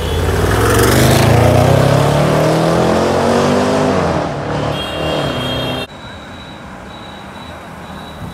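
Range Rover Sport SVR's supercharged V8 accelerating hard past, its pitch climbing for about four seconds and then dropping off as the throttle comes off. Near the end the sound cuts away abruptly to quieter road traffic.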